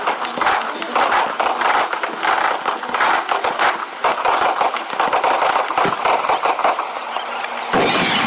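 Aerial fireworks bursting in quick succession, a dense, rapid crackling and popping from glittering crackle stars. Near the end the sound jumps to a fuller din with high whistling glides.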